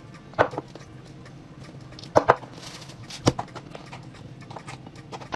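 A few short, sharp clicks and knocks of kitchen containers and utensils being handled as seasonings go in: one about half a second in, a quick pair just after two seconds, and one more a little past three seconds.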